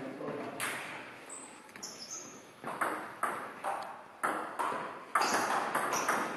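Table tennis ball being struck back and forth in a rally, sharp clicks of ball on bat and table with a short hall echo. The hits are sparse at first, then come about two a second in the second half.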